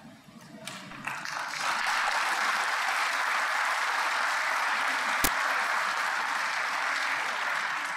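Audience applauding, building up about a second in and then holding steady, with a single sharp click about five seconds in.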